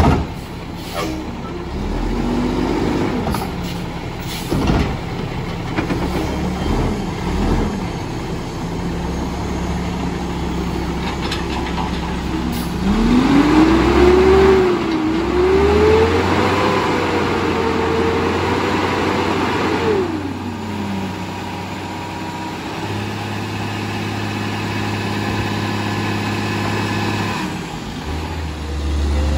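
Mack MR garbage truck's diesel engine running at idle, with a couple of short revs early on; about halfway through it is revved hard, held high for several seconds, then drops back to idle.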